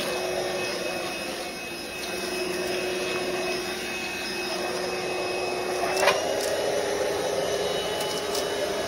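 ROOMIE TEC SlimVac cordless stick vacuum running steadily while picking debris off a floor, a constant motor whine over suction noise. About six seconds in there is a click, and the motor's pitch steps up slightly.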